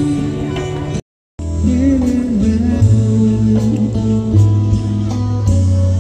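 Music with guitar and a bass line, with a singing voice over it; the sound cuts out completely for a moment about a second in, then the music carries on.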